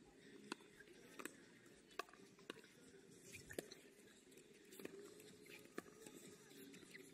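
Near silence: faint room tone with scattered faint, sharp clicks, roughly one a second.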